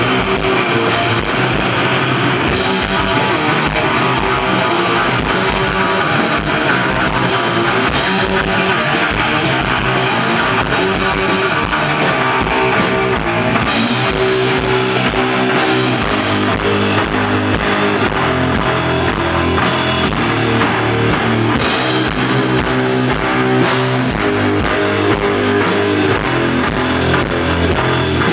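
Live rock band playing: electric guitar and bass over a drum kit with cymbals, steadily loud. About halfway through, a heavier low bass line comes in.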